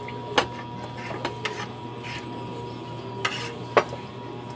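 Spoons and forks clinking and scraping against plates as people eat: several short sharp clinks spread through, over a steady hum.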